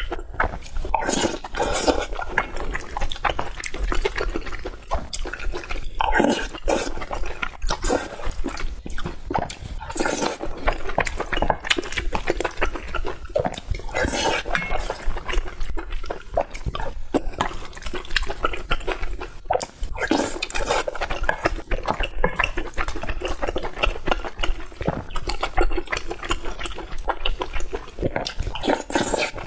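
Close-miked eating: wet chewing and mouth sounds of rice mixed with a sauced dish, with a steady run of small clicks throughout.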